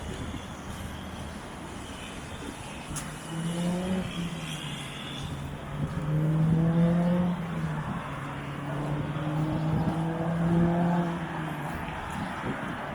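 A car engine running close by, a steady drone that comes in a few seconds in, swells twice and fades near the end, over a background of traffic noise.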